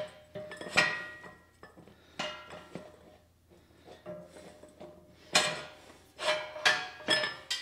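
Steel axle and wheel-hub parts knocking and clinking as the axle is worked through a wheel bearing: sharp metallic knocks at irregular intervals, each ringing briefly, with a quick run of three near the end.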